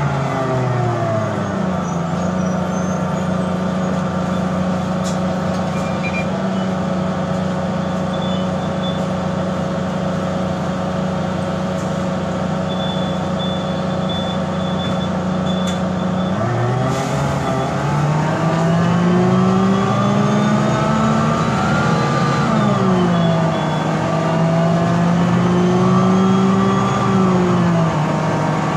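Diesel engine of a Mercedes-Benz O405G articulated bus with a Voith DIWA automatic gearbox. The engine note holds steady for about the first half, then climbs as the bus accelerates, drops at a gear change and holds steady again. This is the engine the owner calls bad and weird-sounding.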